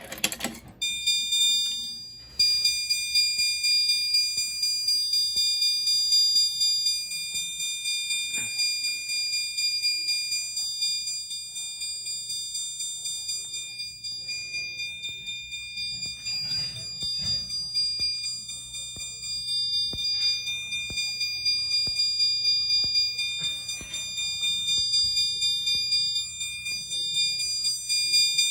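A System Sensor SpectrAlert Advance chime strobe sounds in alarm with a fast, even run of high chime strikes. The fire alarm system has gone into alarm from a key-activated pull station. The chime starts just after the opening and grows louder about two seconds in.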